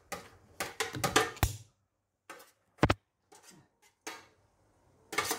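Dishes and serving utensils clattering: a quick run of sharp knocks in the first second and a half, then a single hard knock near the middle and another near the end.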